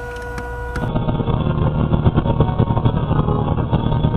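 A steady electric hum with a few even tones, then a sudden switch about a second in to the low, steady rumble of a vehicle's engine and tyres on the highway, as heard inside the cab through a dashcam's microphone, with many small knocks and ticks.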